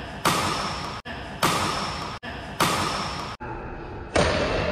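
Badminton rackets striking a shuttlecock in a rally: four sharp hits about a second apart, each echoing in the large hall.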